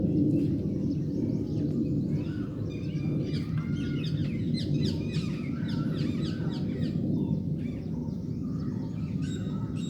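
Many birds chirping and calling over one another in short, quick notes, most crowded in the middle, over a steady low background rumble.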